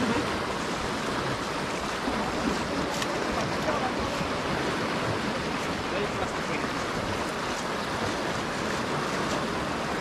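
Steady rushing of river water.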